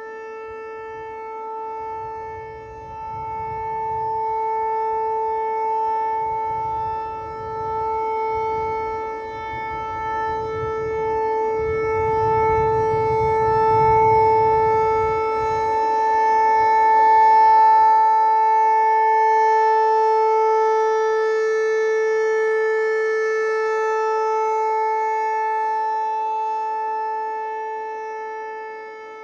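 Outdoor tornado warning siren sounding a steady, unwavering tone during a test, its loudness swelling and fading and loudest in the middle. A low rumble runs underneath through the first half.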